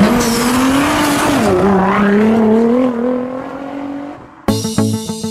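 A car engine held at high revs through a tyre-smoking burnout, with tyre squeal; the pitch wavers and sags, then dies away about four seconds in. Plucked-guitar music starts abruptly just after.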